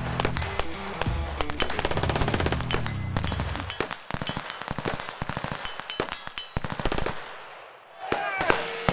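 Automatic gunfire in rapid strings of shots, over background music with a heavy low beat that drops out about four seconds in.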